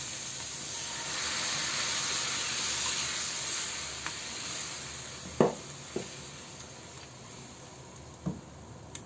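Onion-and-spice masala sizzling in a hot pan as a little water is poured in and stirred with a wooden spatula. The hiss swells about a second in, then dies down over the second half, where a few light knocks of the spatula against the pan stand out.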